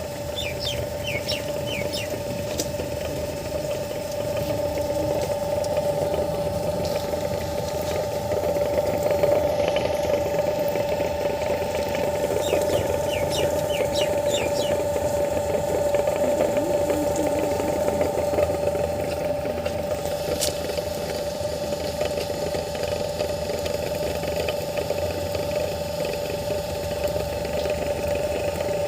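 A motor running steadily with a constant whine over a rough rumble: an abnormal noise from the motor side whose cause has not been found.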